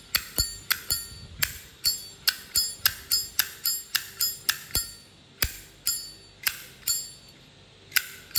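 Vintage brass Zippo lighter's lid being flicked open and snapped shut over and over, about two to three sharp metallic clicks a second, each with a bell-like ring from the lid and hinge.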